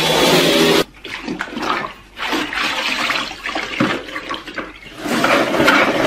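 A cordless stick vacuum runs and cuts off abruptly within the first second. Water then sloshes and splashes as a mop is worked in a spin-mop bucket. About five seconds in, a louder, continuous churning starts as the mop head is spun in the bucket's wringer basket.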